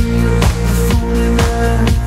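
Background music with a steady heavy beat, about two beats a second, over sustained bass and held tones.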